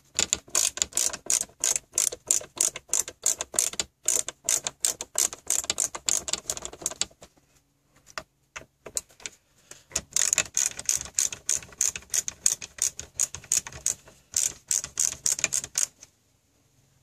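Ratcheting screwdriver clicking rapidly, about four or five clicks a second, as it backs out the screws holding a car stereo in the dash. The clicking stops for a few seconds partway through, then resumes.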